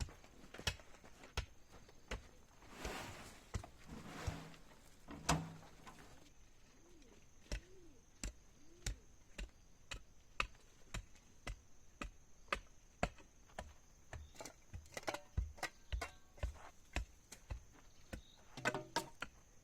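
A series of sharp knocks, roughly two a second and coming more often in the second half, with a short rustling noise about three seconds in.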